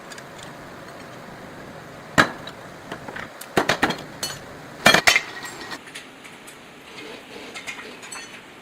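A few irregular sharp metal knocks and clinks, the loudest a quick pair about five seconds in, over a steady background hiss.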